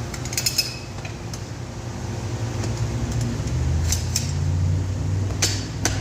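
Sharp metallic clinks and clicks of metal tools and the tire changer being handled during a motorcycle tire change, a cluster near the start and more around the middle and end, over a steady low hum.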